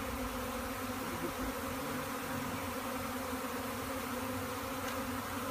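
A large swarm of honey bees buzzing, a steady, even hum.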